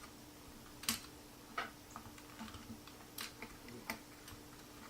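Sharp, irregular clicks and taps of small metal RC driveshaft parts being handled and fitted together, with the loudest clicks roughly a second apart.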